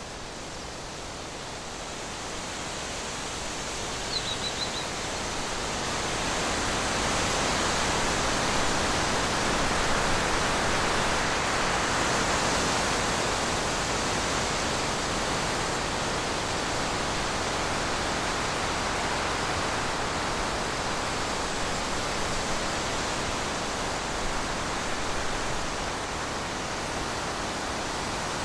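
A steady, even hiss that swells a little about six seconds in, with a short, faint high chirp about four seconds in.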